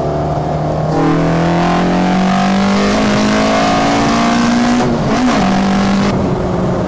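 Citroën Saxo VTS's tuned 1.6 16v four-cylinder, breathing through individual throttle bodies with open trumpets and a decat exhaust, heard from inside the stripped cabin under hard acceleration. The revs climb steadily for several seconds, drop sharply at an upshift about five seconds in, and then hold lower as the throttle eases.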